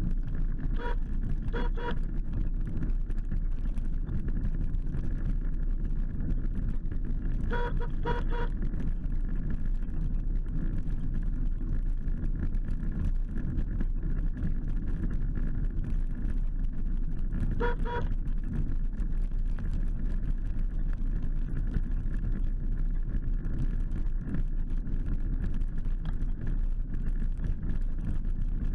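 Electric 8 mph mobility scooter driving steadily over tarmac: a constant low rumble with a faint steady whine. Short high beeps cut in twice about a second in, three times in quick succession around eight seconds, and once more around eighteen seconds.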